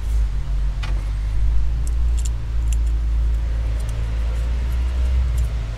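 Light metallic clicks and clinks as a steel mounting bracket and its bolts are handled and fitted by hand, a few sharp ticks scattered through, over a steady low rumble.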